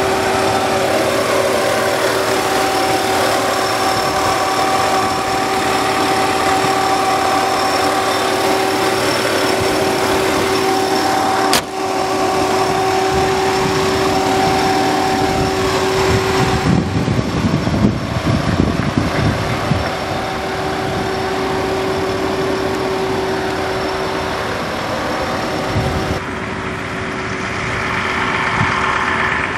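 An engine idling steadily, a constant hum with a high thin whine over it. There is a sharp click about twelve seconds in, and an uneven low rumbling between about seventeen and twenty seconds in.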